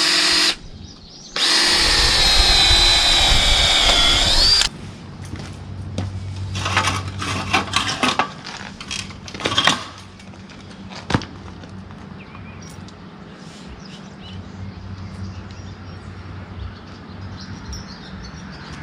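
Power drill boring holes for the mud flap bolts: two bursts of high whine, the second about three seconds long with its pitch dipping then rising just before it stops. Then a few seconds of knocks and clatter as parts are handled, and a faint low hum after that.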